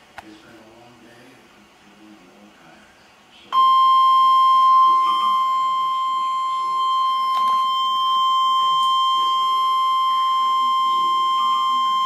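Weather radio warning alarm tone: one steady, loud, high-pitched beep that starts about three and a half seconds in and holds unbroken, announcing a new tornado warning. Before it, only a faint low murmur.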